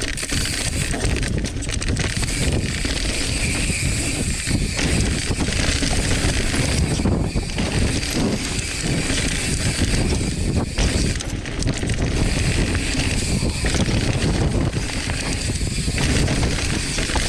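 Mountain bike riding fast down a dry dirt trail: steady wind rush over the camera microphone with tyres rolling on dirt and the bike rattling and knocking over bumps.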